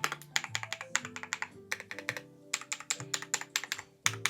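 Typing on a Sermon 75% mechanical keyboard fitted with its stock keycaps: rapid runs of clacky keystrokes with a couple of brief pauses, over quiet background music.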